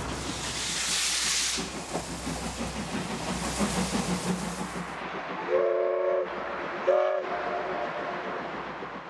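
Steam locomotive C58 239 working: hissing steam and exhaust chuffs, then two whistle blasts past the middle, a longer one followed by a short one.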